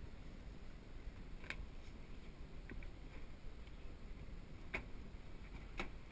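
Faint low background rumble with a few sharp clicks: one about a second and a half in, a faint pair near the middle, and two louder ones near the end.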